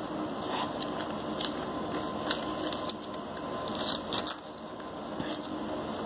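Paper being handled on a table: light rustles and soft taps of a paper envelope and tracker card being picked up and set down, a few separate small noises over a steady background hiss.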